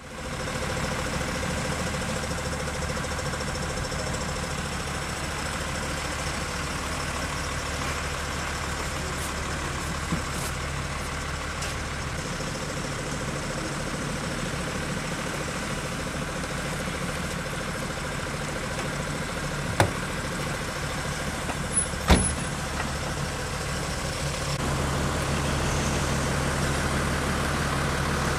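Vehicle engines idling, a steady hum, with a few isolated sharp knocks.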